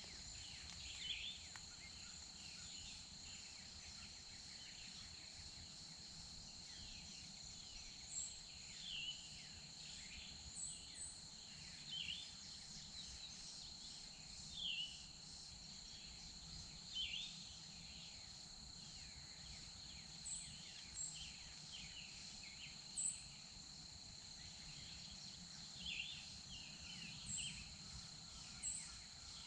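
Outdoor ambience of scattered short, falling bird chirps every second or two over a steady, high-pitched insect drone.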